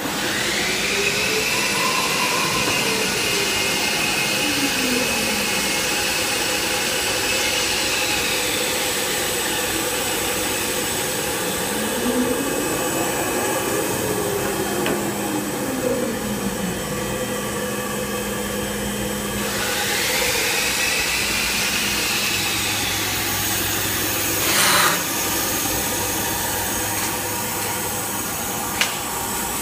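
Thermwood five-axis CNC router running without cutting. Its spindle whine rises as it spins up, holds steady, then winds down, twice over. Lower motor whines sweep up and down in pitch as the axes move, over a steady hiss, with a short burst of hiss late on.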